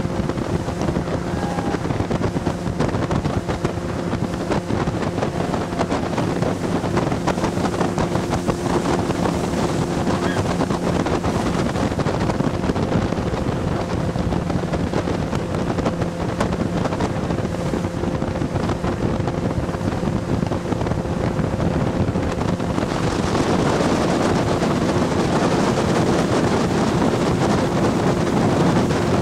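Motorboat engine running steadily under way, with water rushing past the hull and wind on the microphone. About 23 seconds in, the rush of water and wind grows louder.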